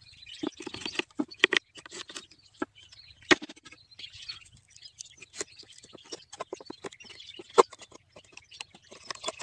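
Small steel knife cutting and notching a bamboo pole: a run of sharp clicks and scrapes, with a few louder knocks, over birds chirping in the background.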